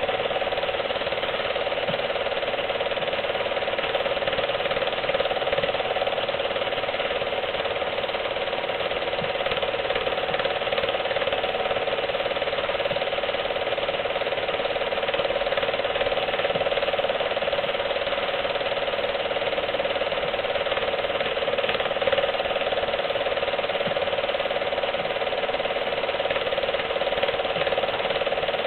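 Film projector running: a steady, unbroken mechanical clatter from the film transport.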